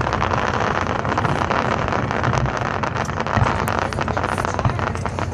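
Fireworks display: a dense, steady crackling made of many small pops over a low rumble, with wind noise on the microphone.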